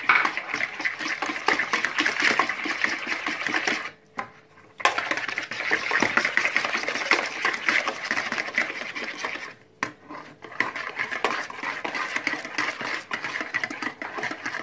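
Wire hand whisk beating runny cake batter in a ceramic bowl: a fast, steady clatter of the whisk against the bowl with the batter sloshing, stopping twice briefly, about four and ten seconds in.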